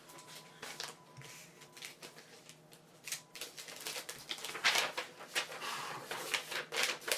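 Trading cards and their packaging being handled: irregular rustling and clicking, sparse at first and busier from about four and a half seconds in.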